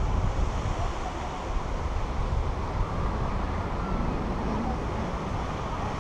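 Steady rush of wind over the microphone of a pole-mounted camera in tandem paraglider flight, heaviest at the low end.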